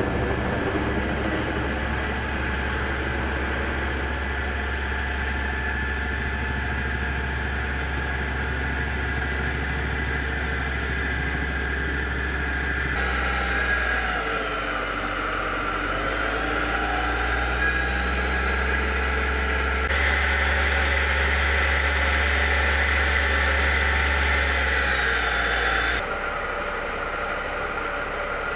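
A vehicle engine running steadily at idle, with a strong low hum. It changes abruptly three times, and in the later part a faint high whine bends slowly down and up in pitch.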